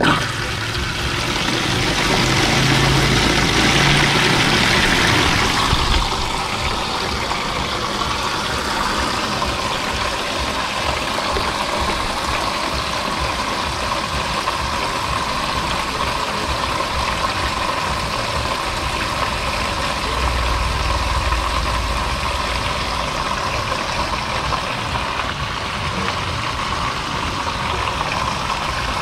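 Water pouring steadily out of an opened PVC pipe onto a concrete floor as a rooftop water tank is drained down. It is loudest in the first few seconds, then settles to an even rush.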